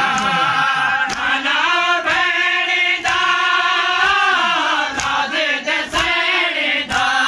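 A group of men chanting a noha, a Shia lament for Imam Hussain, in unison, with a chest-beating (matam) stroke about once a second.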